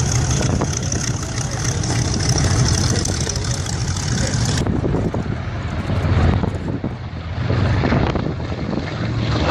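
B-25 Mitchell's twin Wright R-2600 radial piston engines droning, with wind buffeting the microphone. The sound changes abruptly about halfway through.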